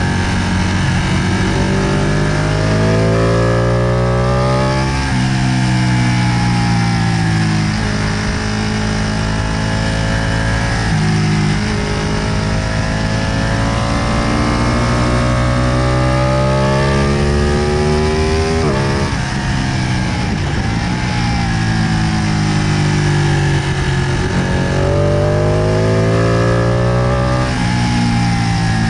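Ducati 959 Panigale Corse's 955 cc Superquadro L-twin through its stock exhaust, ridden hard on track: the engine note climbs steadily and then drops abruptly at each gear change, several times over, over a steady rush of wind.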